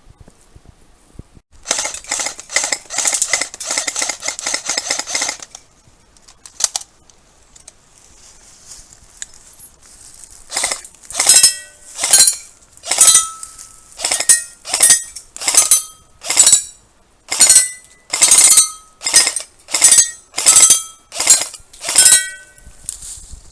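An electric airsoft gun, an ICS M3 Grease Gun with a mock suppressor, fires a full-auto burst of about four seconds. After a lone click, it fires a string of about fourteen separate short shots, each with a clinking metallic ring.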